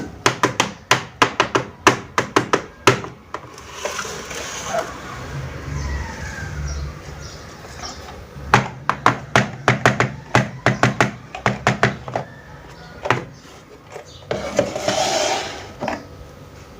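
Small plastic toy kitchenware being handled: runs of quick, sharp taps and clicks, about three or four a second, in two spells, with rustling and scraping between them.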